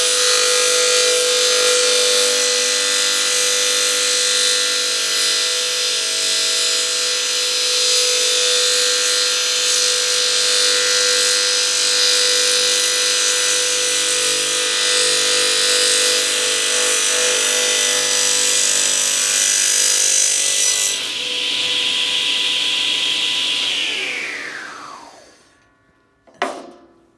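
Stationary circular saw running and cutting through an old wooden board: a steady motor and blade whine with the rasp of the teeth in the wood. About 21 seconds in, the cutting stops and the blade coasts to a halt, its whine falling in pitch and fading over a few seconds. A single knock comes near the end.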